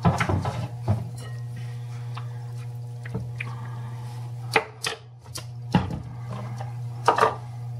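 Spatula scraping margarine out of a measuring cup and knocking against the cup and mixing bowl: several scattered taps and scrapes. A steady low hum runs underneath.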